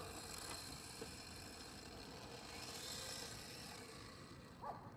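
Faint whir of an electric RC drift car on a D-Like LP-86 chassis driving on asphalt, with a short chirp near the end.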